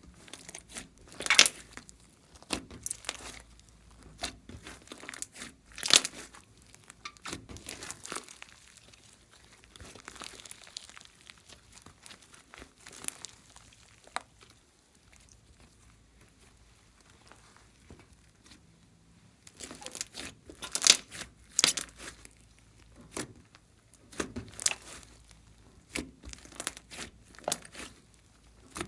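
Slime being squeezed, stretched and kneaded by hand: irregular sticky clicks, pops and crackles as air pockets in the slime burst, in bursts with a quieter stretch in the middle.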